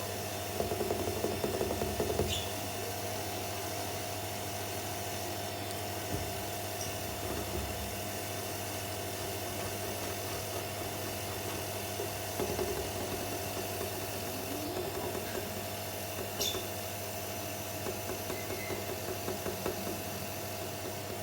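A steady mechanical hum, with a few short, faint rough patches and two light ticks over it.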